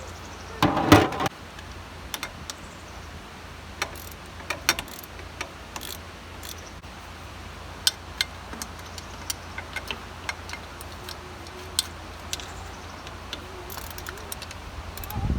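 Hand work on metal parts: a brief louder clatter about a second in, then scattered small clicks and clinks over a low steady hum.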